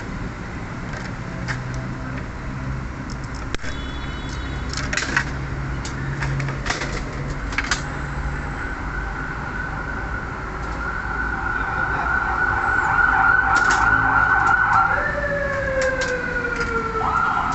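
Scattered clicks and knocks over a low hum. From about halfway, a wavering siren-like tone grows louder, then falls in pitch twice near the end.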